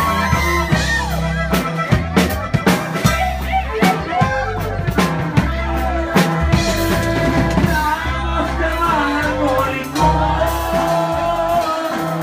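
Live band music: drums and a steady low bass line under a pitched melody, with a voice singing in stretches.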